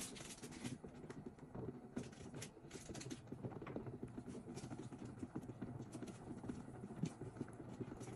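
Soup water heating toward a boil in a stainless steel stock pot: faint, irregular ticking and small bubbling pops.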